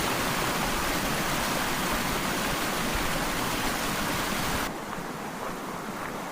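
River water rushing steadily, an even hiss of moving water. About four and a half seconds in it drops suddenly to a quieter level.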